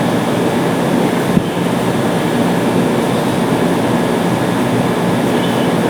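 Steady mechanical hum and rush of workshop background noise, with a faint low steady tone and one light click about a second and a half in.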